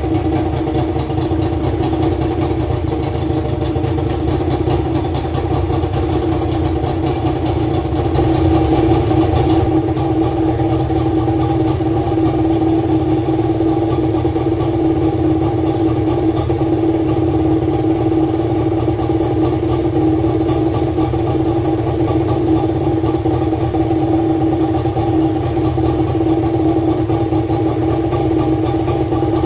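2000 Johnson 50 hp outboard engine running steadily at idle, with its water pump working, a little louder for a moment about eight seconds in.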